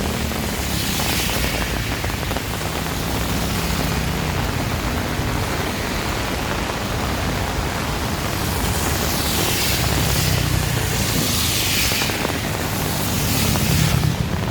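Heavy tropical rain pouring steadily in strong wind, with a low engine drone underneath and a few rushing swells in the second half.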